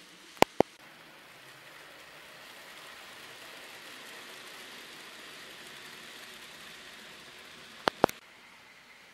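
N-scale model train running on its layout, a steady hissing whir that swells a little in the middle. Two pairs of sharp clicks, one shortly after the start and one near the end, stand out as the loudest sounds.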